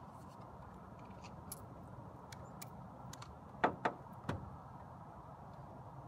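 Leak-detection bubble solution crackling on a leaking copper refrigerant joint: small scattered ticks of bubbles popping, with three sharper clicks a little past the middle, over a steady low hum.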